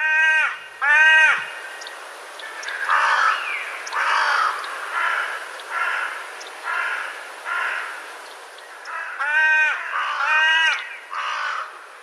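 Carrion crow cawing. It gives two loud caws, then a run of fainter caws, then three more loud caws near the end.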